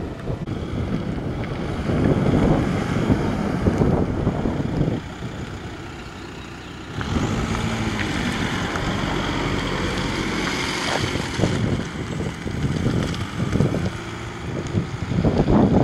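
Wind buffeting the microphone in irregular low gusts, with a steadier rushing hiss for a few seconds in the middle.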